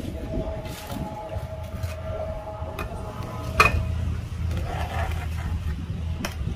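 Steady low outdoor rumble with a faint steady whine over it that stops about three and a half seconds in, where a single sharp knock sounds; a lighter click comes near the end.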